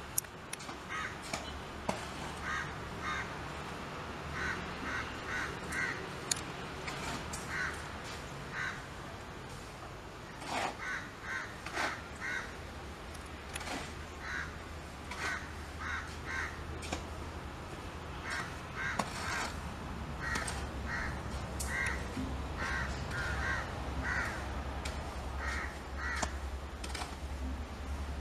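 Crows cawing repeatedly in short runs of two to four calls. Under them is a low diesel engine rumble from the approaching freight locomotives, which grows louder in the last third.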